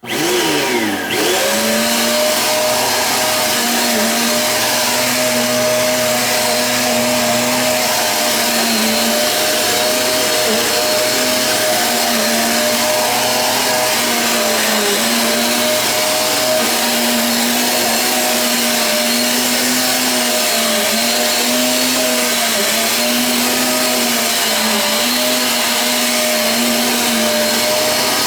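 A Eureka AirSpeed One cyclonic upright vacuum cleaner is switched on, its motor whine rising to speed within the first second or two. It then runs steadily with a high hum, the pitch dipping slightly now and then.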